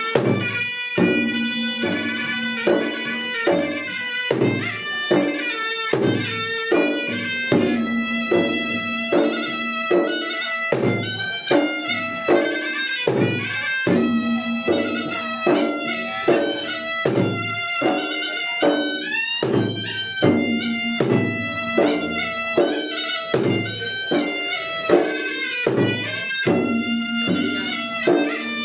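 Traditional Makassarese gendang ensemble: double-headed gendang drums beat a steady, driving rhythm of about two strokes a second under a shrill, continuous reed melody typical of the pui-pui oboe.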